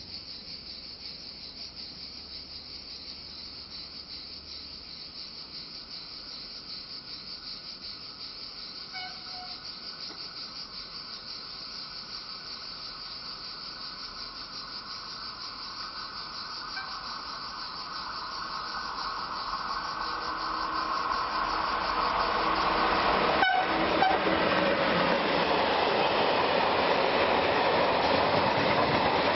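A freight train approaching and then rolling past close by: the wheels and wagons grow steadily louder from just past halfway and run loud and continuous near the end. Under it, a steady high insect chorus. A brief faint horn-like tone sounds about a third of the way in.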